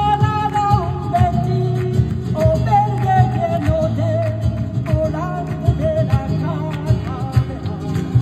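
Live flamenco rumba: a cante singer holding long, wavering sung notes over strummed flamenco guitars, with sharp percussive hits from hand-clapping and percussion throughout.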